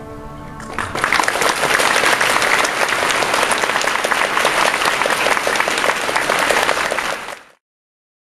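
Music ends about a second in and gives way to loud applause, many hands clapping densely, which cuts off abruptly near the end.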